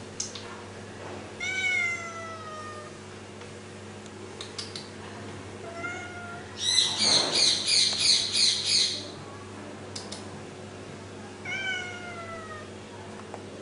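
Domestic cat meowing three times: two long meows that fall in pitch, with a short one between them. The loudest sound comes midway: a run of rapid high chirps, about four a second, lasting a couple of seconds.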